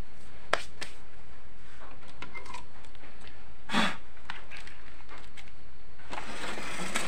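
Handling noises: a few light clicks, then a louder knock a little under four seconds in, followed near the end by cloth rustling close to the microphone as a sleeved arm reaches across.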